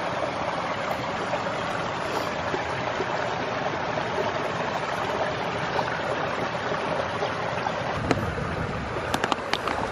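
Small stream running over stones: a steady rush of water. Near the end comes a few light clicks.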